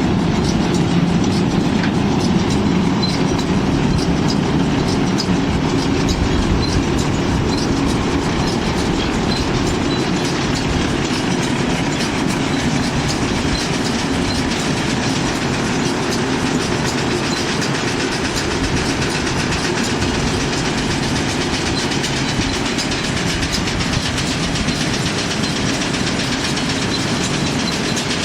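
Hesston 5800 round baler running: a steady mechanical clatter with a fast, even ticking.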